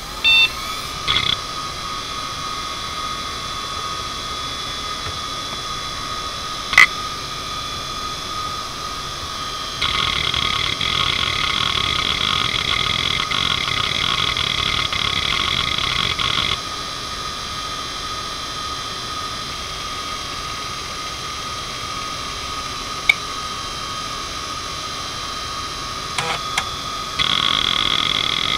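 Toshiba MK2326FC 2.5-inch three-platter IDE hard drive spinning at 4200 rpm with a steady high whine, its spindle bearings in good shape. Its heads seek with a few single sharp clicks, a stretch of rapid seek chatter in the middle, and chatter starting again near the end.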